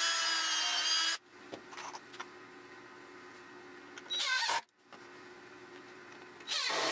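Cordless drill whining as it pre-drills a pilot hole through a cedar deck board for about a second, then a short burst of drilling about four seconds in. Near the end a cordless driver briefly runs a screw in.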